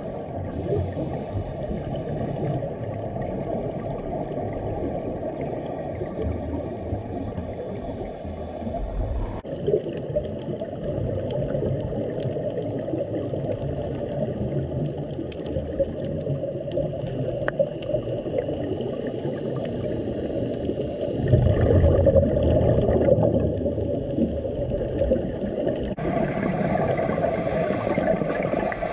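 Muffled underwater water noise heard through a dive camera's housing: a steady low rush, swelling louder for a couple of seconds about two-thirds of the way through.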